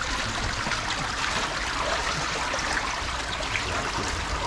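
Shallow brook water running steadily, a continuous even trickling rush.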